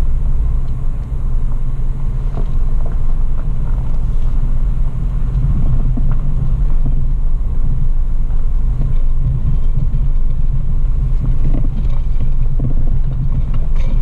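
Toyota FJ Cruiser driving slowly over a rough dirt trail, heard from inside the cabin: steady low engine and drivetrain rumble with tyre noise and scattered small knocks and rattles from the uneven track.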